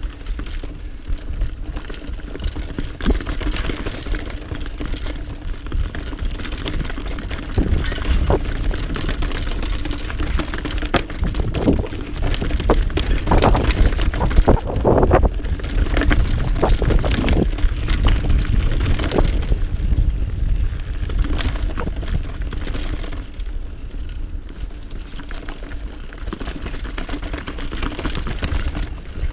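Mountain bike riding over a rocky forest trail: tyres crunching over stones and roots, with the bike rattling and knocking over the bumps. Low wind rumble on the microphone throughout; the knocking is busiest about halfway through.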